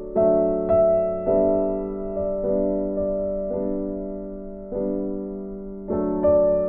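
Slow, gentle piano music. Notes and chords are struck about once a second, and each is left to ring and fade.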